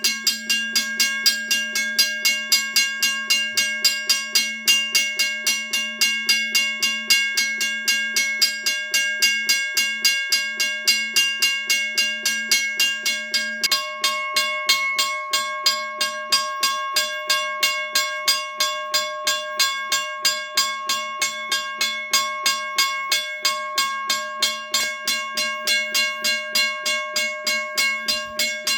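Western Railroad Supply (WRRS) 222 mechanical railroad crossing bell ringing steadily on a 9-volt battery: an electric striker hammering its gong in a fast, even run of strokes, with the gong's tones ringing on between blows. The bell, freshly freed of rust and lubricated, rings a little bit slow and a little bit weak.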